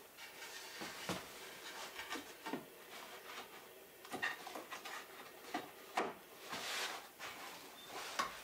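Softwood wall board being handled and fitted against a plank wall: an irregular string of light wooden knocks, taps and scrapes, with gloved hands rubbing on the wood.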